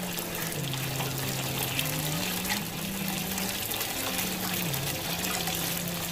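Water running steadily from a garden hose into a tank, with low held notes of background music stepping between pitches underneath.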